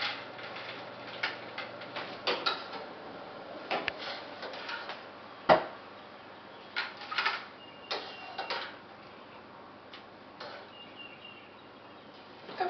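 Irregular light clicks and knocks of kitchen handling as blanched asparagus is chilled in a bowl of ice water, with one sharper knock about five and a half seconds in.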